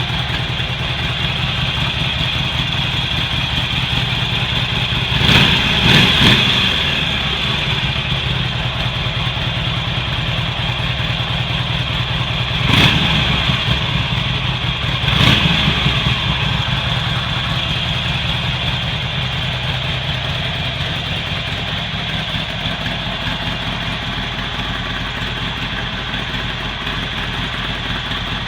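Harley-Davidson Iron 883's air-cooled V-twin idling through its stock exhaust, blipped twice in quick succession about five seconds in, then revved once more at about thirteen and again at fifteen seconds before settling back to idle.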